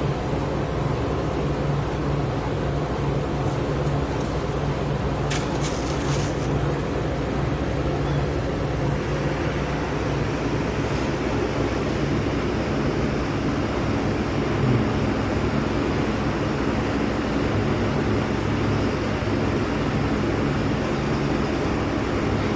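Outdoor unit of a 1.5-ton Goodman heat pump running in cooling mode, its compressor and condenser fan giving a steady low hum, with a few faint ticks about five to six seconds in.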